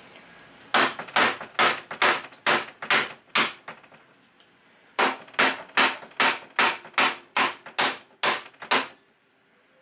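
Claw hammer striking the wooden frame of a kitchen base cabinet being demolished: two runs of quick, sharp blows, about three a second, with a pause of over a second between them.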